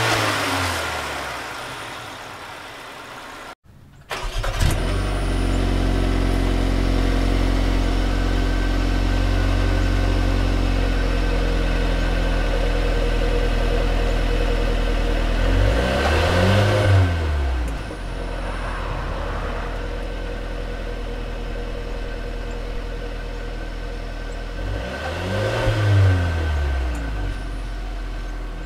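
2021 Mercedes-Benz GLB 250's 2.0-litre turbocharged four-cylinder. A throttle blip dies away at the engine bay, and after a brief break the engine is heard at the exhaust, idling steadily. It is revved twice, once midway and once near the end, each rev rising and falling back over about two seconds.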